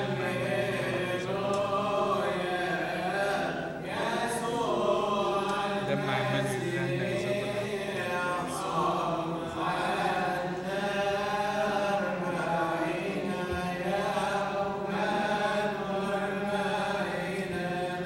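Coptic Orthodox liturgical chant sung during the distribution of Communion: long, drawn-out notes that waver and glide, with no pause.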